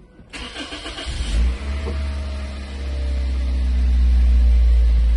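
Toyota Wish's four-cylinder petrol engine, heard from inside the cabin: the starter cranks briefly, the engine catches about a second in, and it settles into a steady idle that grows a little louder over the next few seconds.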